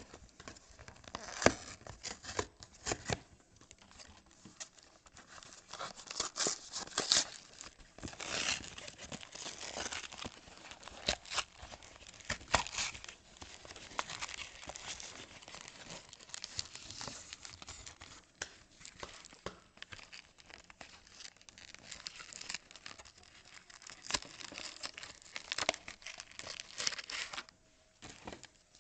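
Trading-card pack wrappers being torn open and crinkled in the hands: irregular rips and crackles of foil-like packaging.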